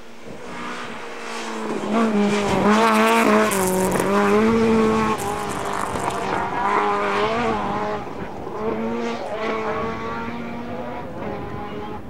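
Rally car engine revving hard as the car passes at speed. It is loudest from about two seconds in, with its pitch dropping and climbing again several times with gear changes as it fades away.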